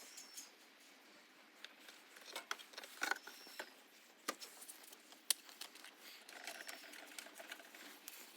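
Faint handling noises: scattered light clicks, taps and rustles, with a few sharper ticks around the middle.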